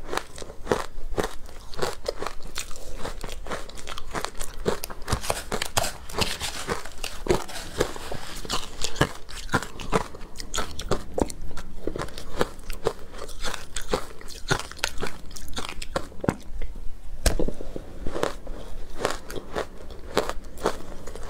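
Close-miked biting and chewing of frozen ice dusted with matcha powder: a quick, continuous run of crisp crunches.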